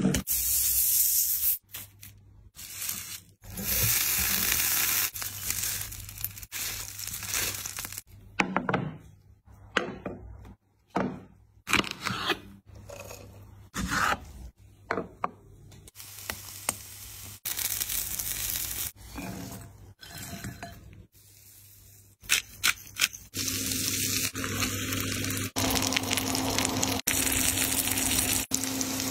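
A string of short food-preparation sounds, cut one after another: aluminium foil crinkling under a hand at the start, crisp cooked bacon cracking as gloved fingers bend it, and seared meat sizzling in its juices on a hot surface for the last few seconds.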